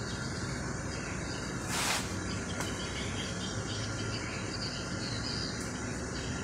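Steady background noise with faint insect-like chirping, and one short rustle about two seconds in.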